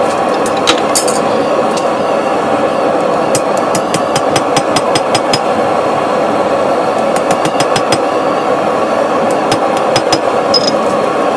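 Hammer tapping on a hot steel blade on an anvil, in quick runs of several light strikes, as a touch-mark stamp is struck into the blade. A steady rushing roar runs underneath.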